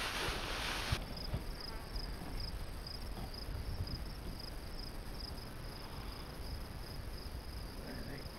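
Insects chirping in a steady high pulsing rhythm, about two pulses a second, over faint outdoor background. In the first second, before it drops away suddenly, there is a louder rustling of someone walking through tall grass.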